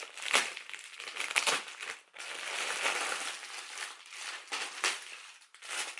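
A mail-order clothing parcel being opened by hand: its wrapping rustles and crackles in a run of handling noises, with a longer continuous stretch about two to four seconds in and sharper crackles near the start and the end.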